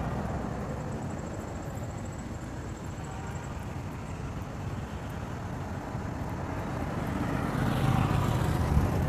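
Steady low rumble of road traffic, swelling louder near the end as a vehicle goes by.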